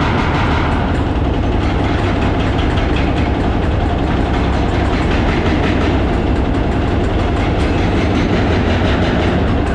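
Excavators breaking up a concrete bridge deck in demolition: a loud, steady mechanical din with a rapid, continuous rattle.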